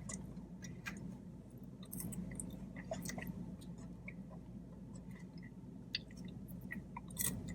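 A person chewing food close to the microphone, with scattered faint mouth clicks.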